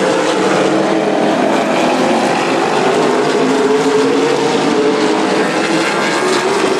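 Several late model race cars' V8 engines running at racing speed as the field laps the track: a loud, steady drone of overlapping engine notes whose pitch rises and falls.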